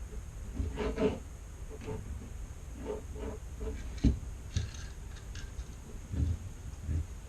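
Hand-work noises from a fuel pump being fitted to its bracket: rubber and plastic parts rubbing and scraping, with a few light knocks, the sharpest about four seconds in.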